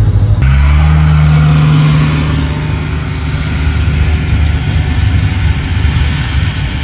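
Engine of a vintage car running close by, a steady low note that grows quieter about two seconds in.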